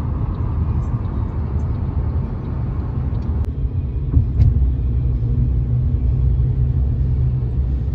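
Road noise inside a moving car's cabin on a freeway: a steady low rumble of tyres and engine.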